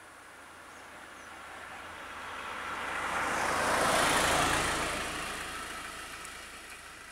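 A van driving past close by: engine and tyre noise swells to a peak about four seconds in, then fades away.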